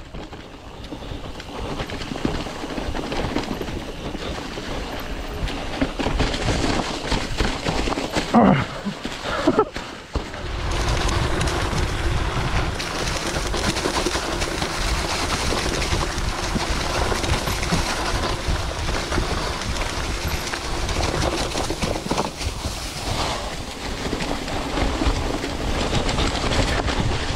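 Mountain bike rolling down a dirt trail covered in dry fallen leaves: the tyres crunch through the leaves and the bike rattles over the rough ground. The noise grows louder and steadier from about ten seconds in.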